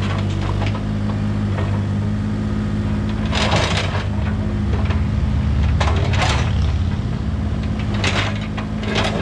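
Bobcat E32 mini excavator's diesel engine running steadily. The bucket scrapes and knocks against stone and soil in several short bursts as it tears into the retaining wall.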